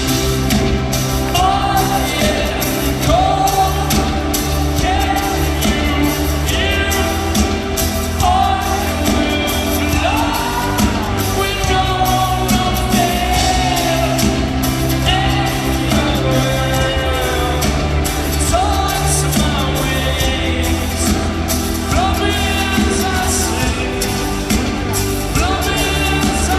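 Live band music in an arena: a male lead voice singing over steady bass notes and drums.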